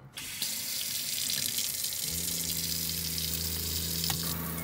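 Water running from a stainless pull-down kitchen faucet into a deep stainless steel sink. About two seconds in a steady low hum joins, the RV's water pump running.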